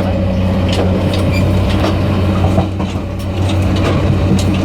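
Diesel multiple unit train running, heard at the gangway between two cars: a steady low diesel drone under irregular clicks, creaks and rattles from the car connection and the wheels on the track.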